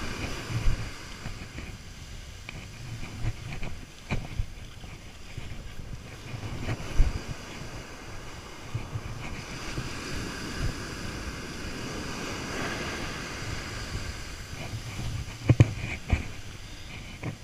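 Surf breaking and washing up the sand, with wind buffeting the microphone. A few sharp thumps stand out, the loudest about 7 seconds in and a pair near the end.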